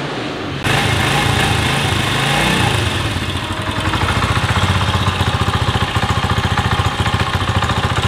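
Honda CD 70 Dream's 72 cc four-stroke single-cylinder engine starting less than a second in. It wavers in pitch briefly, then settles into a steady, evenly pulsing idle.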